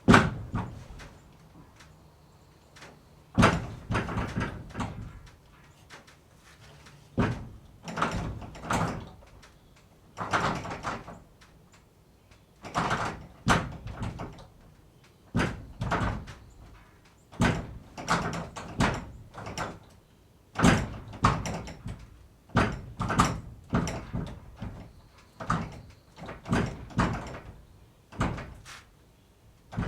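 Barn door being worked over and over: a series of bangs and rattles every one to three seconds, some coming in quick clusters.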